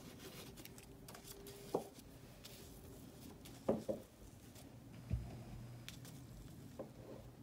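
Faint handling sounds while gluing paper by hand: a few soft taps and knocks, with a low thump about five seconds in, as a glue bottle is squeezed and a paper cut-out is pressed down on a wooden table.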